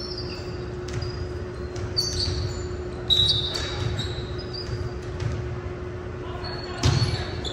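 A volleyball being struck during play on a gym court: three sharp hits, the loudest about three seconds in and near the end. Between them come short high squeaks of sneakers on the hardwood floor, over a steady hum.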